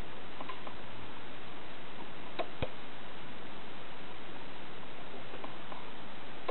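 Sharp switching clicks, two of them about two and a half seconds in a quarter second apart, with a few lighter clicks before and after, over a steady hiss: relays and controls clicking as the Kenwood TS-480 transceiver is changed to another band.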